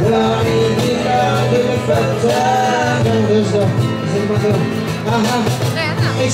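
Live acoustic band playing: a man singing into a microphone over strummed acoustic guitars.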